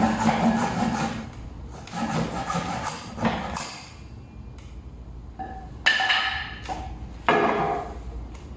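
Japanese double-edged pull saw (ryoba) cutting through a wooden board in rasping strokes, which stop about four seconds in as the cut goes through. Then two sharp knocks about a second and a half apart, each with a short ringing tail.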